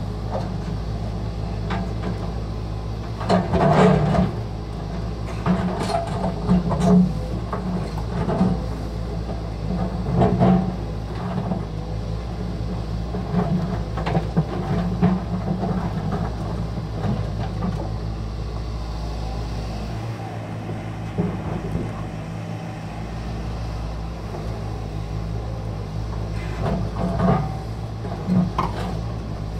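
Volvo EC210 excavator's diesel engine running steadily as the bucket digs into rocky earth, with irregular louder knocks and scrapes of stone and soil against the bucket every few seconds.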